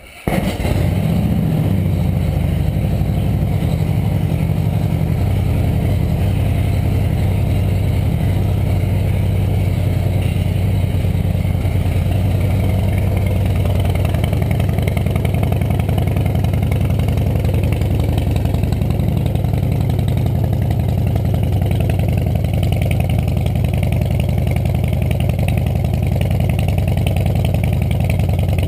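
2009 Harley-Davidson Softail Rocker C's Twin Cam 96 V-twin, through a Vance & Hines Big Radius 2-into-2 exhaust, catching right at the start and settling into a steady low idle.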